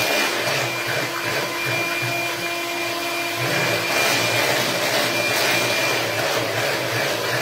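Electric hand mixer running steadily, its whisk beaters whipping eggs and sugar in a plastic bowl.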